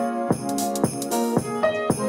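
Background music: a Christmas pop song, with keyboard chords over a steady beat of about two beats a second and no vocals.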